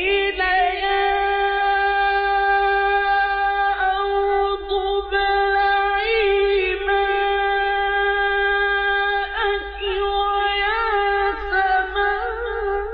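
A male Quran reciter's voice holding one long, high, steady note on a drawn-out vowel, then breaking into wavering melodic ornaments in the last few seconds: melodic tajweed recitation. A steady low electrical hum from the old recording lies underneath.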